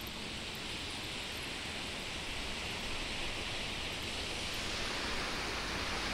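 Steady rushing hiss of open-air wind and the fast-flowing, swollen river, slowly growing a little louder.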